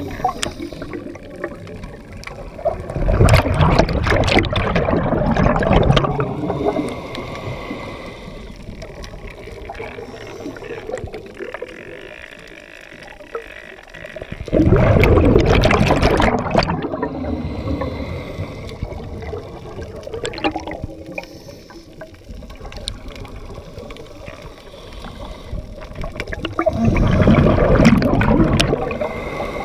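Scuba diver's regulator exhaling underwater, recorded by an underwater camera: three long rushes of bubbles about twelve seconds apart, with a quieter hiss between breaths.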